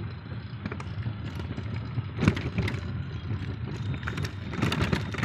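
Rickshaw riding along a street: a steady low rumble with scattered rattles and knocks, the loudest a little past two seconds in and again near the end.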